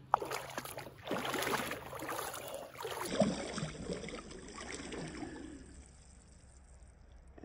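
Shallow river water splashing and gurgling close to the microphone, irregular and dying away over the last couple of seconds, with a sharp knock at the very start.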